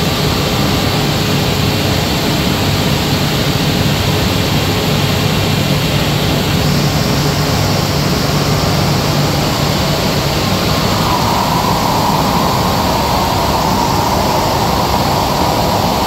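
SCM Tech Z2 CNC woodworking machining centre running, with a loud, steady mechanical noise and a low hum. About two-thirds of the way through, a higher steady tone joins in.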